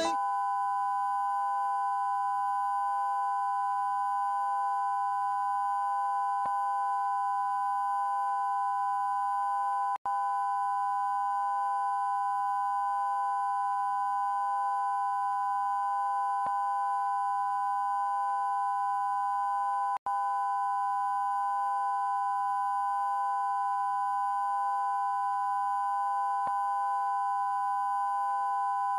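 Steady broadcast test tone played with the colour bars of a TV station's test card, one unchanging pitch around 1 kHz. It cuts out for an instant twice, about ten and twenty seconds in.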